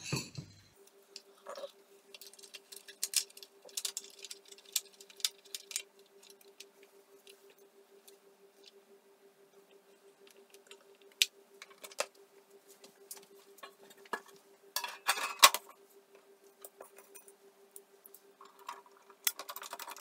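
Scattered metallic clicks, taps and clatter as a vintage Pioneer TX-8500 II tuner is handled and its sheet-metal top cover is fitted back on, with a faint steady hum throughout. The loudest clatter comes about three quarters of the way through.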